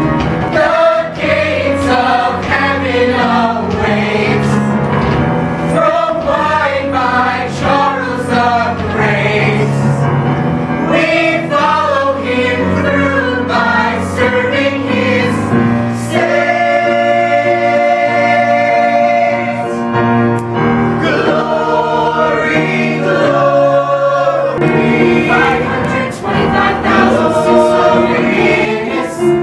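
Youth theater ensemble singing a Broadway show tune together in chorus, with a long held chord a little past the middle.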